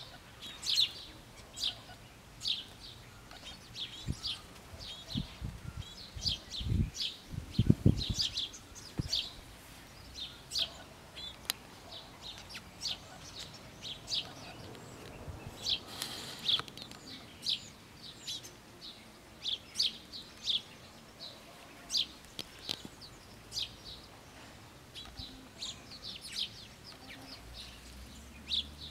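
Small songbirds chirping, many short high notes repeating throughout. A few low thumps about eight seconds in are the loudest sounds.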